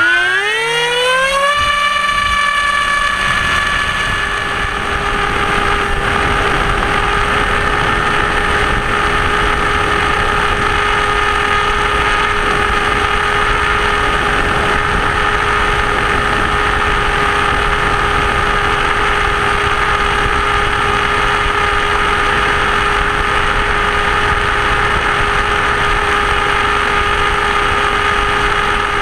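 Electric motor and propeller of a Blitz RC Super Skysurfer model plane winding up to a high whine over the first second and a half as the throttle opens, then running at a steady pitch with a constant rush of airflow noise.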